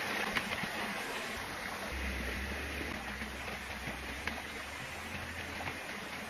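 Steady rushing of a small forest stream, with a few faint ticks and rustles.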